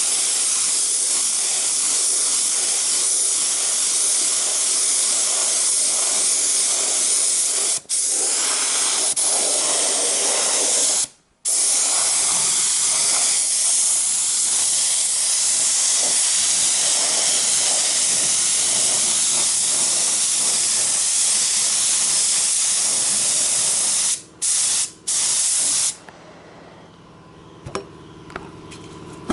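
Compressed-air paint spray gun spraying in a steady hiss, with the trigger released briefly a few times. It stops near the end, leaving a few faint clicks and a low hum.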